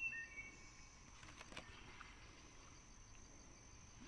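Quiet outdoor ambience with a steady high insect buzz. A short bird chirp comes at the very start, and a couple of faint knocks sound about a second and a half in.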